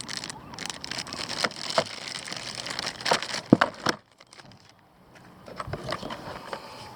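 Packaging rustling and crackling with small clicks and knocks as parts are handled during an unboxing. It goes quiet for about a second a little past the middle, then softer handling noises follow.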